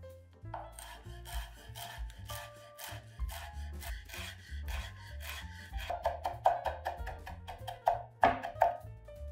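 Background music over a run of quick scraping and tapping strokes from kitchen work, starting about half a second in and loudest in the last few seconds.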